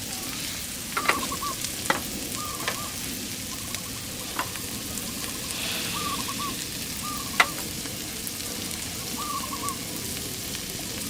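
Food frying in a pan with a steady sizzle and a few sharp clicks. A short, wavering call repeats every second or two above the sizzle.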